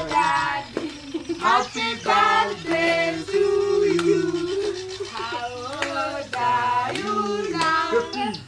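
A group of adults and children singing together, with some hand clapping.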